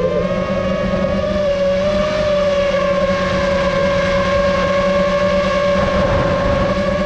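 FPV racing drone's motors and propellers whining steadily in flight, the pitch wavering slightly as the throttle changes.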